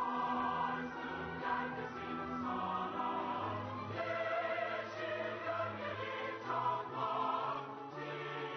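A mixed choir of men and women sings sustained notes with a symphony orchestra accompanying.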